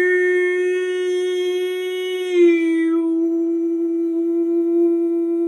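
A woman's voice toning: one long hummed note held on a single pitch, with a slight dip in pitch about two and a half seconds in, as a sound-healing vibration.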